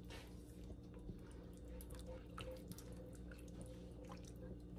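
Silicone spatula stirring and scraping mushrooms in broth in a cast iron skillet, deglazing the pan and lifting the browned bits off the bottom: faint, irregular wet scrapes and small clicks over a low steady hum.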